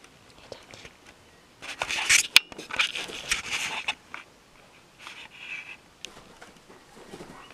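Cat fur brushing and scraping over the microphone in short scratchy bursts as a domestic cat rubs its face against the camera, with one sharp click about two seconds in.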